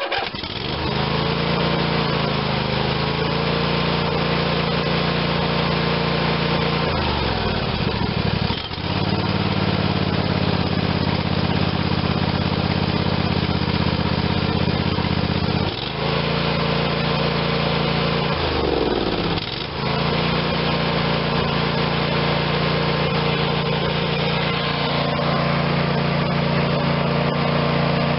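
Briggs and Stratton 22 hp overhead-valve twin-cylinder engine on a Craftsman riding tractor starting up and running steadily on a test run after a carburetor rebuild. Its speed dips and picks back up briefly three times, about a third of the way in, halfway, and about two-thirds in.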